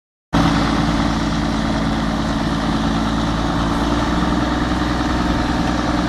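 Schlüter Super 1500 TVL tractor's six-cylinder diesel engine running steadily while the tractor pulls a mounted plough. The sound cuts in suddenly just after the start.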